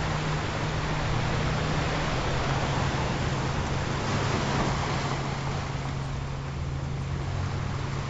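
Recorded ocean waves washing steadily, swelling about halfway through and then easing off, over a steady low humming tone from a binaural-beat frequency track.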